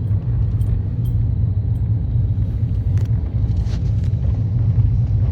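Steady low engine rumble of a moving vehicle heard from on board, with a few faint clicks.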